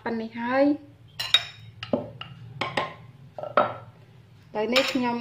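A metal spoon clinking against a china plate: about six short, sharp clinks in the middle stretch, one with a brief ring.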